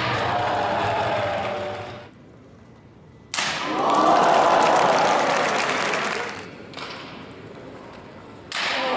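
Crowd cheering and applauding, breaking out suddenly a few seconds in and dying down a few seconds later.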